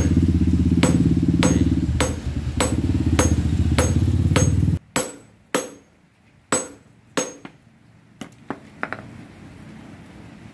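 Hand hammer forging a bearing-steel golok blade on an anvil, nearly two ringing blows a second over a loud low drone. About five seconds in, the drone and hammering cut off abruptly, and a few lighter metal clinks follow as the blade is moved with tongs in the forge fire.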